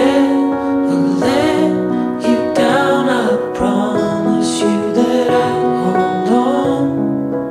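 Background pop song: a singer over instrumental accompaniment.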